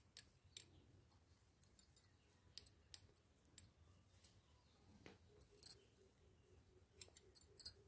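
Faint, irregular clicks of knitting needles as stitches are worked by hand, a few sharper taps near the end.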